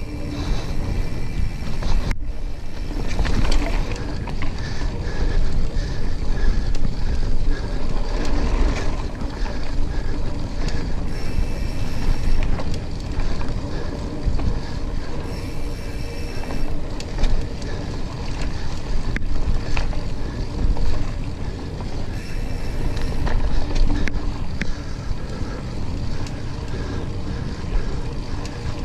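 Mountain bike riding a dirt singletrack, heard from a handlebar-mounted camera: steady wind noise on the microphone over tyres rolling on dirt, with scattered small knocks and rattles from the bike.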